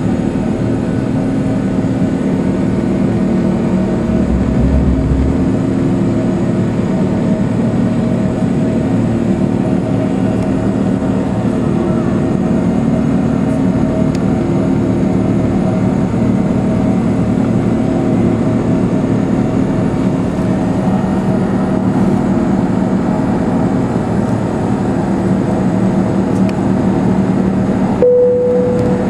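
Airbus A380 cabin noise during the climb after take-off: a steady drone of the Engine Alliance GP7200 turbofans and rushing air, with several low steady hums running through it. Near the end the drone briefly shifts and a new steady hum comes in.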